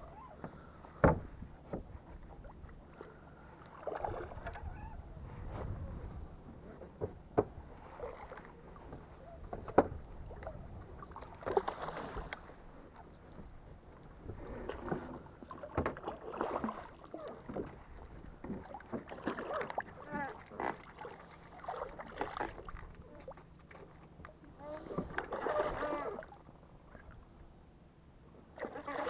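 Water lapping and splashing against the hull of a small fishing boat, in irregular surges, with a few sharp knocks and clicks.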